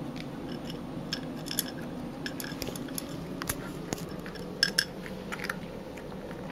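A cat eating from a ceramic bowl: irregular small clicks and clinks of food and teeth against the bowl, loudest in a quick pair about two-thirds of the way in, over a steady low room hum.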